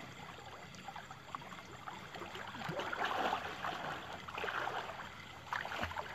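Water sloshing and splashing around people moving about chest-deep in a pond, swelling twice and then a few short sharp splashes near the end.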